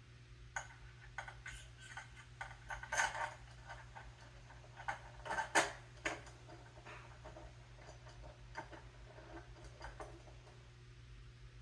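Scattered light clicks and knocks of parts being handled, loudest about three seconds and again about five and a half seconds in, over a low steady hum.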